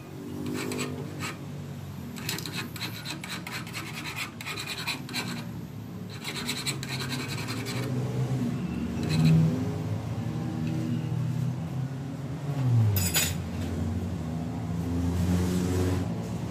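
Hand threading die in its die stock scraping and clicking as it is turned on the end of a crankshaft to rethread it, then a nut being run onto the thread, with one sharp metallic click late on. A low droning hum runs underneath.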